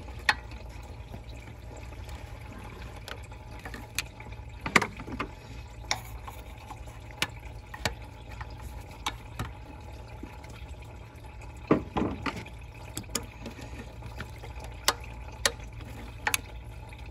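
Metal pliers clicking and scraping against a hose clamp and small hose lines while a clamped tube is worked loose: irregular sharp clicks, a few close together about twelve seconds in, over a steady low hum.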